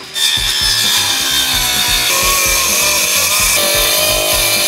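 Circular saw cutting lengthwise through a plywood board. It bites in about a fifth of a second in and runs loud and steady, its motor note shifting slightly as the cut goes on.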